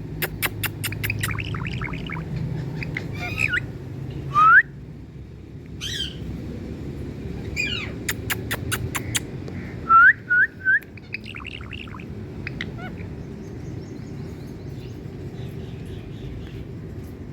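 Pet Indian parrot calling: bursts of rapid clicks, chirps and squawks, with short rising whistles, three in quick succession about ten seconds in, over a steady low background hum.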